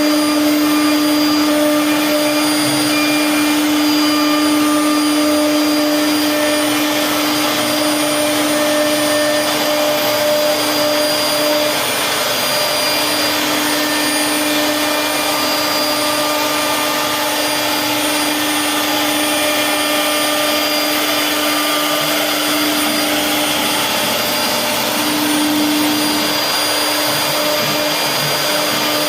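CNC wood router's spindle running while it carves wood: a steady high whine over a rushing noise. The whine drops briefly about twelve seconds in and again a little over twenty seconds in.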